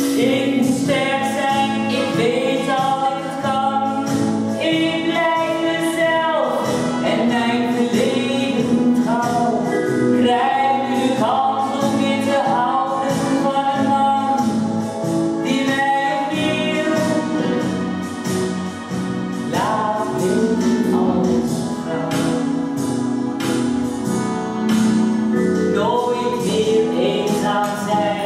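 A woman singing a song in a sustained melody over instrumental accompaniment with a steady beat.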